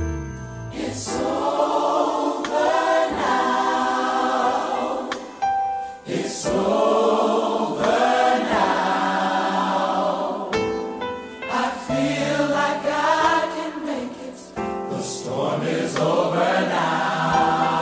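Choir singing as background music, in long sustained phrases separated by brief breaks.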